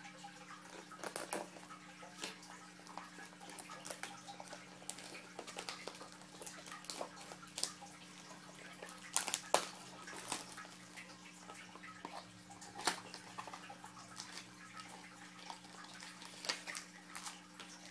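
Cardboard trading-card mini boxes and their packaging being handled and opened: irregular clicks, taps and crinkling, over a steady low hum.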